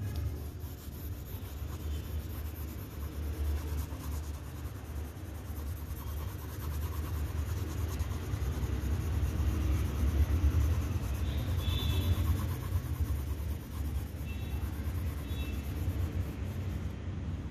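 A graphite pencil shading on drawing paper: continuous scratchy rubbing of quick back-and-forth strokes, with a low rumble underneath from the strokes on the drawing board.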